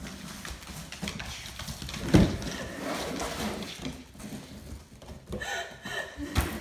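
Dog's claws clicking and scrabbling on a hardwood floor as it noses into a cardboard box, rustling and scraping the cardboard flaps, with a loud thump about two seconds in.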